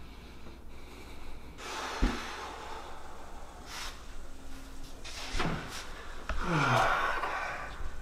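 A man gasping and breathing hard, with a long, loud exhale near the end whose pitch falls. A sharp thump comes about two seconds in.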